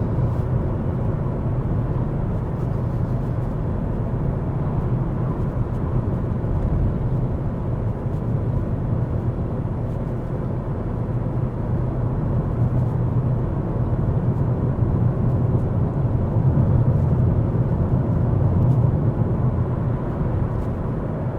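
Steady road and engine noise inside a moving Ford Focus: a low, even rumble of tyres and engine at cruising speed, growing slightly louder about two-thirds of the way through.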